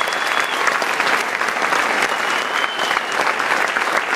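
Large indoor audience applauding steadily, with two high whistles held about a second each, one at the start and one about two seconds in.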